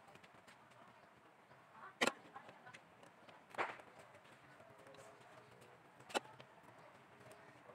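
A serving spoon knocking against the aluminium pot and the chicken bowl while cooked chicken is spooned onto rice: three short, sharp knocks, a second or two apart, over faint background noise.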